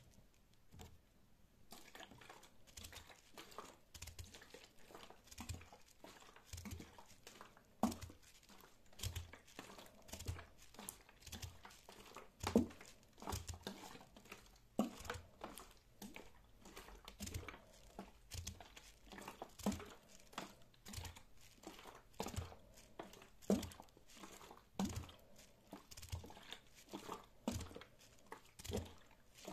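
Fingertips tapping and scratching on plastic bubble wrap: soft crinkling with many irregular sharp clicks, starting after a quiet second or two, a few clicks louder than the rest.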